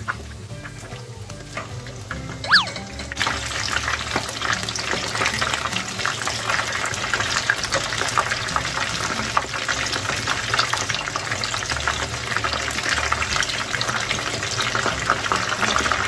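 Battered chicken pieces deep-frying in hot oil, a dense crackling sizzle that turns loud about three seconds in and keeps going.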